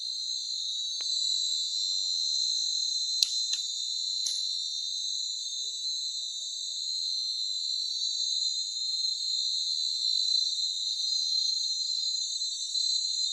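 Steady high-pitched chorus of insects, with three short sharp clicks between about three and four and a half seconds in.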